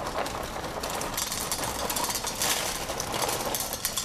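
Dry Cap'n Crunch cereal poured from its box into a Dutch oven: a dense clatter of small pieces falling into the pot.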